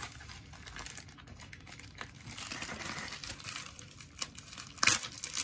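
Plastic bubble mailer crinkling as it is handled and opened, with scattered small clicks and one sharper click near the end.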